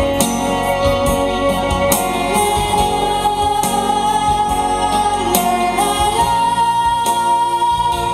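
Live music: female voices singing a melody over keyboard accompaniment, ending on a long held note.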